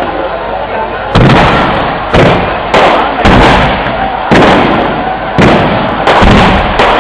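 Aerial firework shells bursting: about eight loud bangs in quick succession, roughly one every second or less, each trailing off in a rumbling echo.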